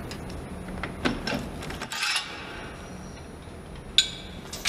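Heavy steel parts clanking on an excavator undercarriage assembly line: a few sharp metallic knocks, the strongest near the end, over a steady factory hum.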